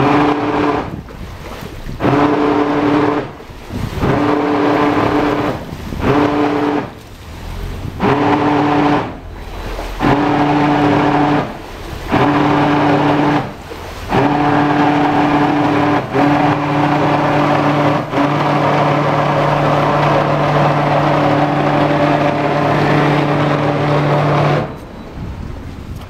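Catamaran's Yanmar drive under joystick control, a humming drone that starts and stops in short bursts every second or two, then holds more steadily before cutting off near the end, as the boat is eased sideways into a tight berth.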